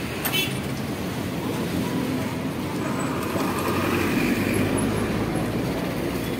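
Steady city street traffic noise, with a brief clatter just after the start and a vehicle passing close, loudest about four seconds in.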